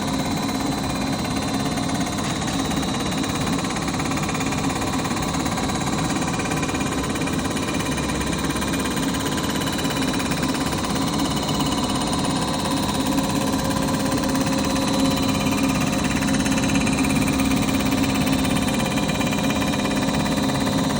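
Metalworking machine tool running steadily during machining of a jet ski crankcase: a low motor hum with a thin high whine over a wash of cutting noise. It stops abruptly at the very end.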